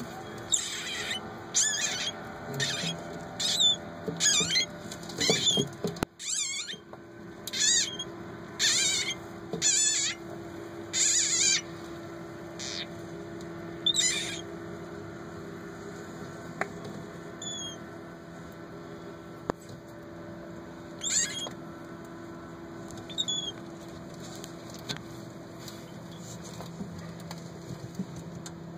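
A frog's distress cries as a garter snake holds it in its jaws: a run of short, high-pitched cries about one a second, thinning to a few scattered cries after about twelve seconds.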